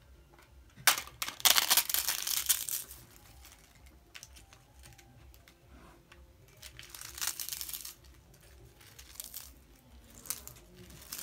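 Crisp fried papad being broken and crushed by hand, a loud crackling burst about a second in, another about seven seconds in, then a few lighter crackles.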